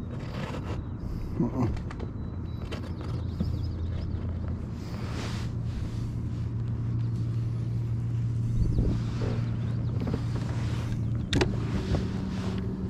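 Small electric motor on the kayak humming steadily, with a few knocks of handling against the hull. Near the end a click comes and the hum shifts to a higher pitch, as the motor control is changed.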